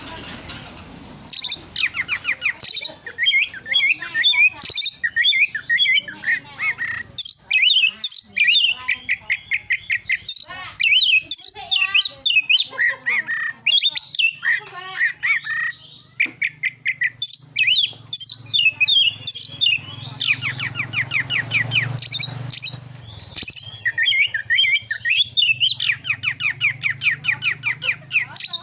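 Oriental magpie-robin (kacer) singing hard in the aggressive 'narung' style: fast runs of whistles, chatter and harsh notes with only short breaks, starting about a second in.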